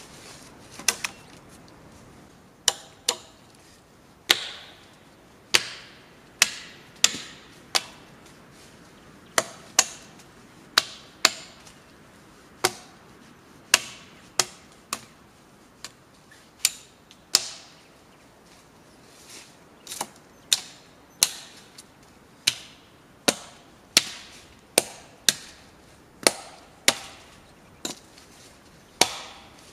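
A hand tool striking wood again and again, sharp separate blows about once a second, unevenly spaced with short pauses between runs.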